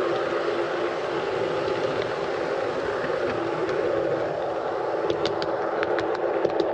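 G scale model train running along its track: a steady mechanical drone of motor and wheels, with a series of short sharp clicks from about five seconds in.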